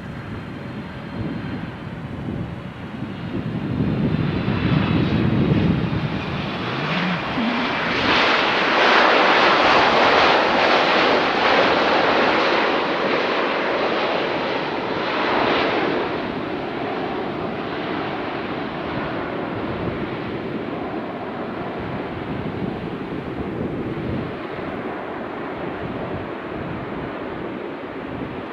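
Boeing 767-300 jet airliner landing: twin turbofan engines whining and rumbling. The sound swells to its loudest from about 8 to 16 seconds in, then slowly fades.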